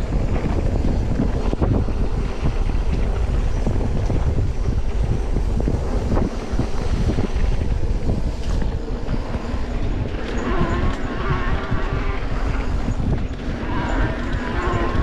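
Heavy wind buffeting the microphone, a constant low rumble. Twice, about ten and about fourteen seconds in, a fainter wavering pitched sound rises above it.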